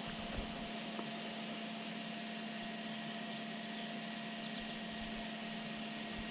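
A steady machine-like hum, a constant low tone with fainter higher tones over an even hiss, with a couple of faint ticks.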